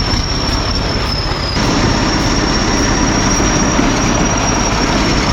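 A crawler bulldozer working loudly, with a steady high-pitched squeal held over a heavy rumble. The sound changes about a second and a half in, getting heavier in the low end.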